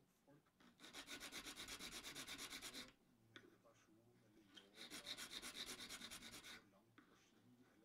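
Needle file rasping the edge of a small mother-of-pearl inlay piece in two runs of quick, even strokes, each about two seconds long, with a short pause between.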